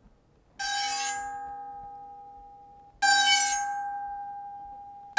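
Synthetic test tone, not from nature, played twice: each time a sudden ringing tone that slowly dies away, the second starting about three seconds in and clearly louder. These are successive steps on a soft-to-loud loudness scale used in a listening study.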